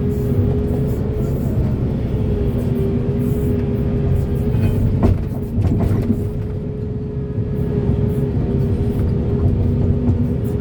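Heavy diesel construction machinery running steadily: a dense engine drone with a constant whine above it, and a brief knock about five seconds in.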